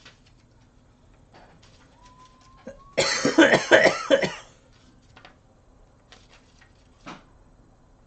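A man coughing hard several times in quick succession, starting about three seconds in and lasting over a second, with faint rustling of paper pages around it.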